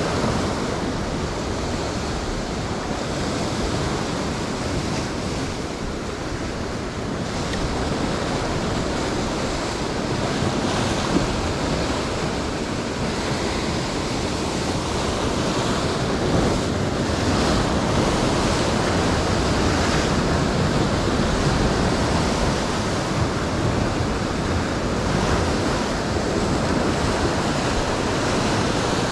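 Ocean swell breaking and washing over a rock shelf: a continuous rushing surf that swells and eases without a break.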